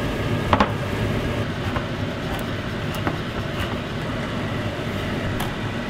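Ground meat frying in a stainless steel pot: a steady sizzle, with a few light knocks of a wooden spatula against the pot.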